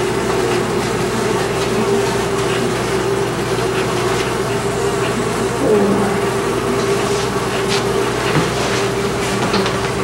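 Honeybees buzzing in a jar: a continuous, slightly wavering drone.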